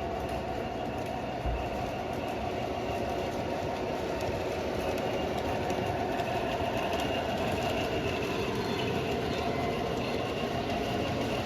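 Model train running on the layout's track: a steady hum of the locomotive's motor mixed with wheel-on-rail noise, growing slightly louder.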